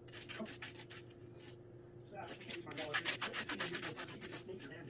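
Silicone pastry brush scrubbing a flour-and-water paste onto a thin sheet on a wooden board: quick repeated rubbing strokes, with a short pause about halfway through.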